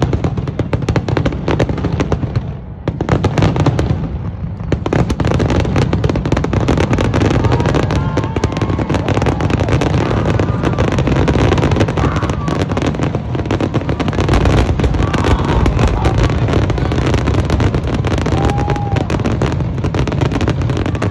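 Fireworks display: a rapid, continuous barrage of bangs and crackles from many shells going off at once. It eases briefly about two to three seconds in, then runs on unbroken.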